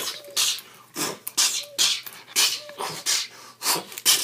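A person making a rapid string of short, breathy, hissing mouth noises, about two to three a second, with brief small squeaks of voice among them.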